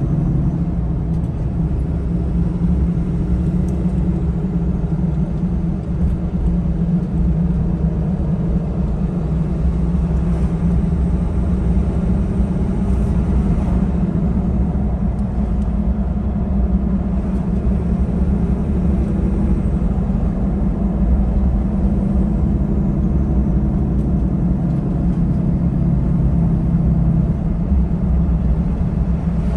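Truck engine and tyre noise heard from inside the cab while cruising at a steady speed: an even low drone with no change in engine pitch.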